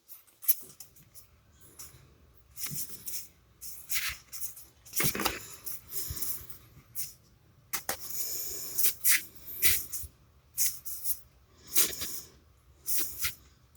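Trading cards being handled and flipped through: irregular dry rustles, slides and light taps of card stock and packaging.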